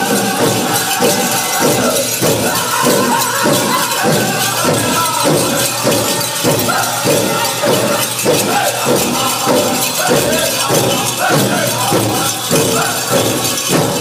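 Powwow drum group singing a chicken dance song: a steady drumbeat, about two strokes a second, under the singers' voices.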